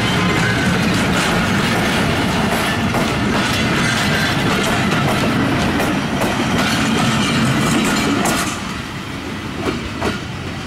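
Passenger coaches of the Khyber Mail express rolling past close by, with steady wheel noise and a run of clattering clicks over the rail joints. It grows quieter about eight seconds in as the last coach draws away.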